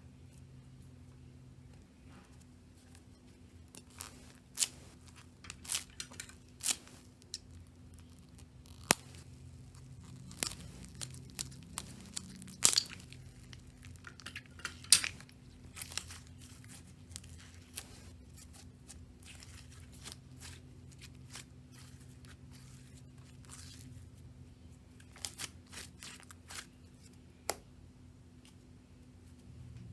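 Slime being handled: irregular sticky crackles, pops and snipping sounds, in clusters with quieter stretches between, over a faint steady low hum.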